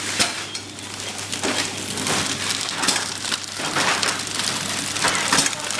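PFM Hurricane horizontal flow-wrapping machine running, with plastic film crinkling and rustling as trays of frozen food are wrapped, over a steady low hum. A louder swish comes about once a second as each tray passes through.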